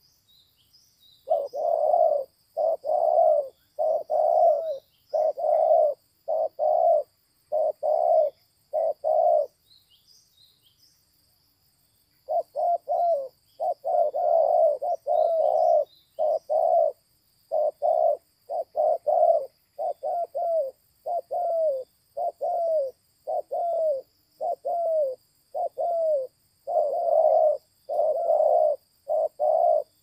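Spotted dove cooing: a long series of short, deep coos, about one a second, some falling in pitch, with a pause of a couple of seconds about ten seconds in. A faint steady high insect tone and a few faint high chirps carry on behind.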